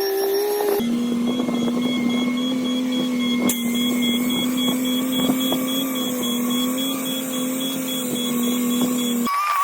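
Engine running at a steady, even pitch, with a sudden drop in pitch about a second in.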